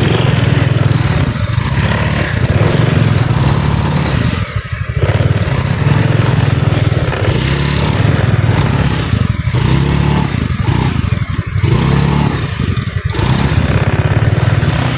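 Honda motorcycle engine running at low speed over a rough trail, with a second motorcycle just ahead. The revs rise and fall, and the sound dips briefly a few times as the throttle eases.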